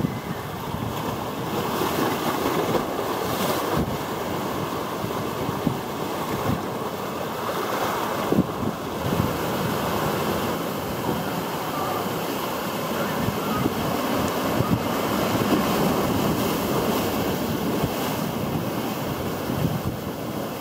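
Sea waves breaking as shorebreak on the beach and rocks and washing in as foam, a continuous surf noise that swells and eases, with wind buffeting the microphone.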